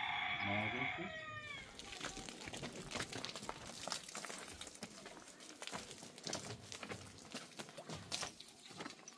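The tail of a rooster's crow: a held call that falls away about a second and a half in. After it comes a busy run of irregular clicks, taps and rustling.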